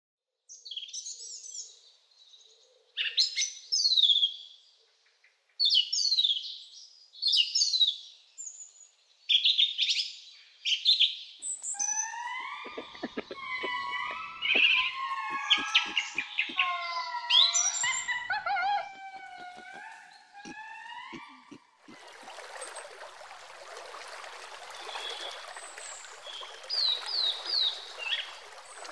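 Birds chirping in quick high bursts, then ring-tailed lemurs calling: a string of short, wavering calls that rise and fall, repeated many times. About 22 seconds in, this gives way to the steady rush of a stream with a few bird chirps over it.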